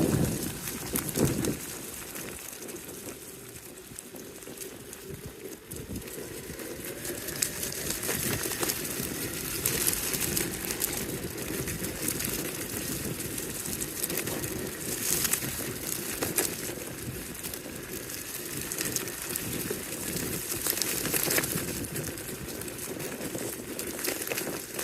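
All-terrain electric skateboard rolling over a dirt bush track: a steady hum from its motors under the rumble of its tyres on the ground, with sharp crackles now and then from twigs and gravel under the wheels.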